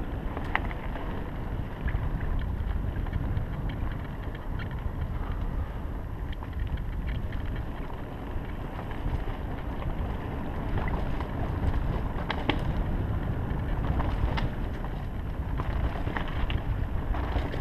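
Mountain bike rolling fast down a dirt singletrack: a steady low wind rumble on the camera's microphone over tyre noise on the dirt, with scattered sharp clicks and rattles from the bike and trail.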